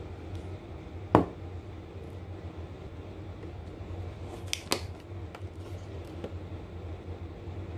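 A drinking glass is set down on a plastic-covered table with a sharp knock about a second in, then two light clicks just before the five-second mark, over a steady low hum.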